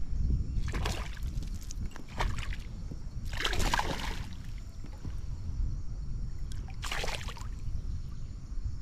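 Water splashing in four short bursts, the longest about three seconds in, over a steady low rumble.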